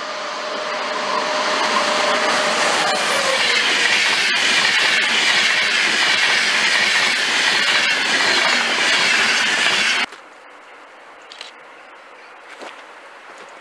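An electric-hauled Deutsche Bahn Intercity train passes at speed, loud, with a steady tone through the first three seconds, then the rushing of the coaches' wheels on the rails. The sound cuts off abruptly about ten seconds in, leaving only faint outdoor background with a few small clicks.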